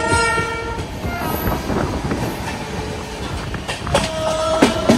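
A three-phase MEMU electric train running past on the next track, its wheels clicking over rail joints, with a few sharp knocks near the end. A steady horn tone sounds for about the first second, and a lower one sounds again near the end.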